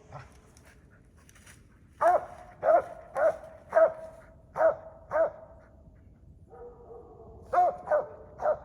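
Squirrel dog barking treed, a sign that she has a squirrel up the tree: about nine sharp barks at a steady pace, starting about two seconds in, with a short pause and a drawn-out lower note before the last three.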